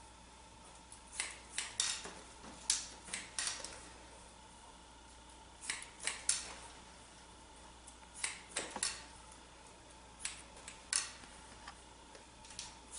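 Hair-cutting scissors snipping through hair held between the fingers, in short runs of a few crisp snips every couple of seconds.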